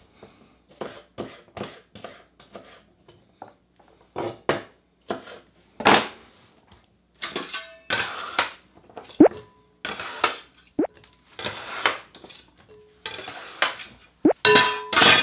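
Kitchen dishes and utensils clattering and clinking as they are handled on a counter: irregular knocks, a few of them followed by short metallic rings.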